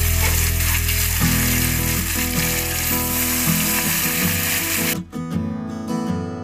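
Small whole fish frying in hot oil in a kadhai, a dense steady sizzle that cuts off abruptly about five seconds in. Guitar background music plays throughout.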